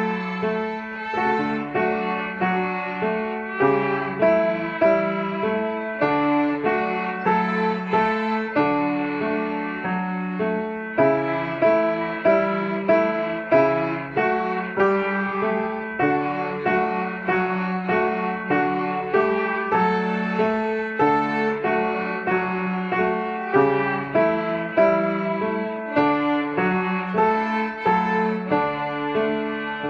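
Student string orchestra playing a piece together, with many notes moving in a steady rhythm.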